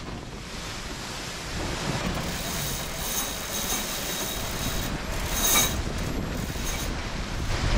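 Sailboat sheet winch being cranked with a handle, its pawls ratcheting as the spinnaker sheet is winched in during a jibe. The ratcheting starts about two seconds in and is loudest about five and a half seconds in, over a steady rush of wind and water.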